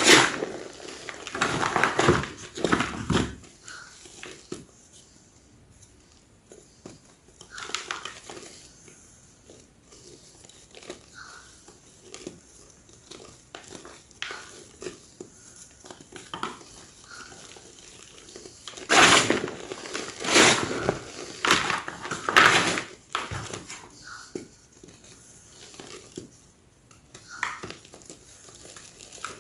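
Large slabs of gym chalk crunching and crumbling in bursts of crisp crackles. The loudest crunches come in the first few seconds and again about two-thirds of the way through, with softer scattered crackles between.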